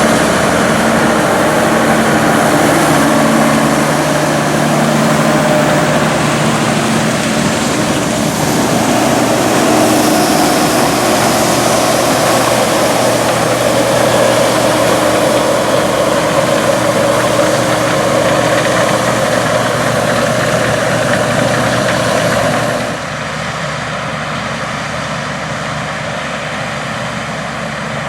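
Steiger Puma 1000 tractor's 8.3-litre diesel engine running steadily at work in the field. Near the end the sound drops suddenly to a lower, steadier level.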